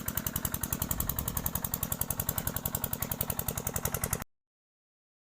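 Engine running at a steady idle with a rapid even putter, about eight beats a second, cut off abruptly to silence about four seconds in.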